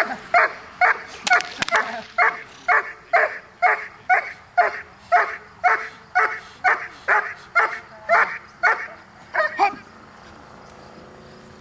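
A young Doberman barks steadily at a protection helper, about two barks a second. The barking stops about two seconds before the end. A few sharp cracks come about one and a half seconds in.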